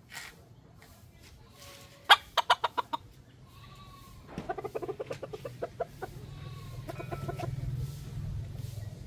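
Chickens clucking in three quick runs of short, sharp notes rather than a drawn-out crow. The first run is the loudest, and faint high chirps come between the runs.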